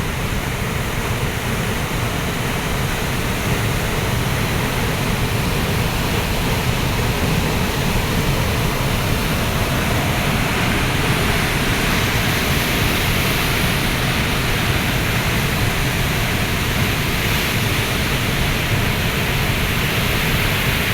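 Waterfall rushing: a loud, steady rush of falling water that grows a little stronger about halfway through.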